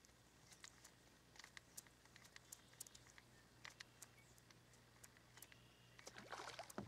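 Near silence with faint, scattered ticks and clicks from a fishing rod and reel being worked through a retrieve, over a low steady hum; a brief rustle near the end.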